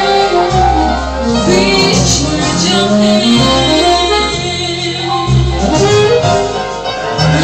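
Music with a woman singing over an instrumental backing that has sustained bass notes.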